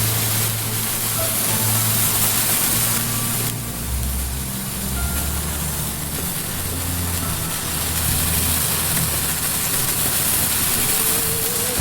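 Morning glory sparklers burning with a steady spraying hiss, which dims a few seconds in and builds again later. Low background music plays underneath.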